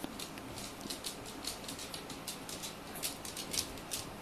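Quick, irregular light clicks and scratches, about two to four a second, from the paws and claws of a miniature pinscher puppy and a miniature rabbit scuffling, over a faint steady background hiss.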